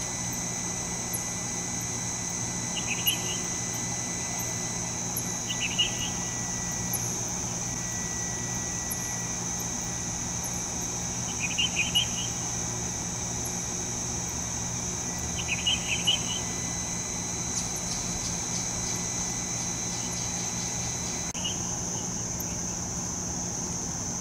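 Steady high-pitched night insect chorus, crickets by its sound, over a low steady hum, with short clusters of chirps about five times a few seconds apart. A thin steady high tone cuts off about three seconds before the end.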